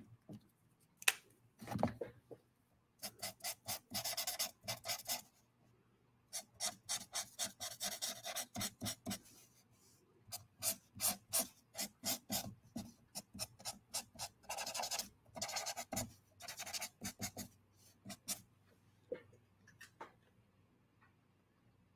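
Copic marker tip rubbing on sketchbook paper in runs of quick back-and-forth shading strokes, several a second, with a few light clicks before and after.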